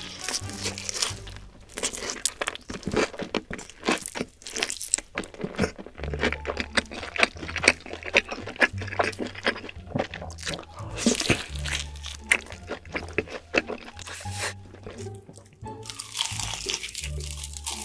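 Crunchy food being bitten and chewed close to the microphone, a dense run of sharp crunches, over background music with a low, shifting bass line.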